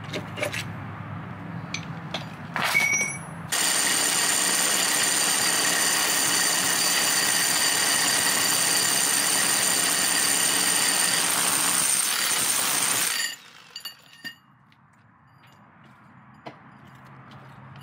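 Rotary hammer driving a 4-1/4-inch core bit into brick: a few knocks, then about ten seconds of steady, loud hammer-drilling with a whine that cuts off suddenly, then a few light knocks.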